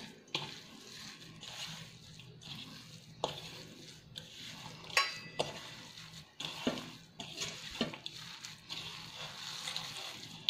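A hand kneading and mixing a grated potato and semolina mixture in a stainless steel bowl. It gives a soft rustle with irregular clicks against the steel, the sharpest about five seconds in.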